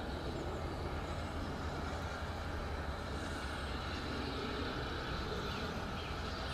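Steam train approaching at slow speed, a steady low rumble.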